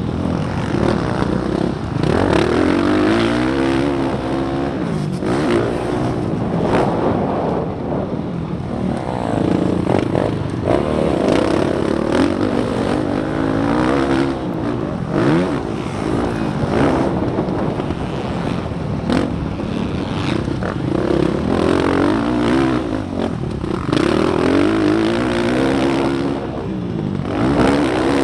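Motocross dirt bike engine heard from the rider's helmet camera, revving up and dropping back again and again as the rider works through the gears.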